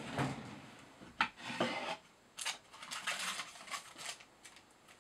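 Short, irregular rubbing and scraping sounds from fly-tying materials and tools being handled at the bench, about eight of them spread over a few seconds.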